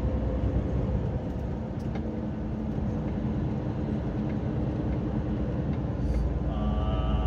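Hino tractor unit's diesel engine running under way with road noise, heard inside the cab. The engine sound grows louder about six seconds in and a higher tone joins it near the end.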